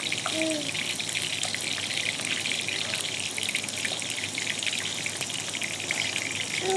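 Water running steadily, a continuous hissing splash.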